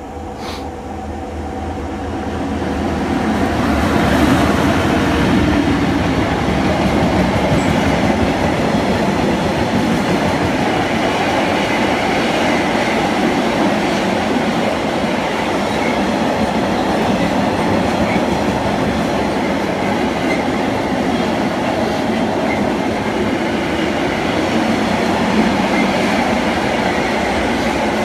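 Class 92 electric locomotive passing at speed at the head of a long freight train. Its sound builds over the first few seconds and is loudest about four seconds in. Loaded car-carrier wagons then roll past with a steady rumble and wheel clatter.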